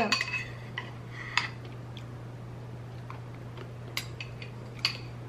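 A few faint, scattered clicks of a metal spoon against a bowl and quiet eating sounds, over a steady low hum.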